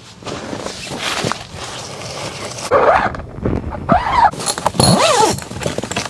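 Tent window zippers being pulled shut: nylon fabric rustling, then three quick zipper strokes about a second apart, each a rasp that rises and falls in pitch.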